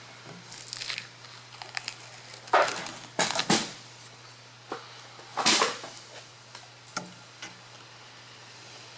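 A few short rustling, crinkling handling noises with a couple of light clicks, the loudest about two and a half, three and a half and five and a half seconds in.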